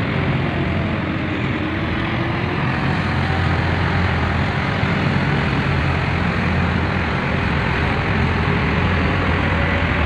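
Heavy diesel mining truck pulling two loaded side-tipping trailers, its engine and tyres rumbling steadily as it drives along.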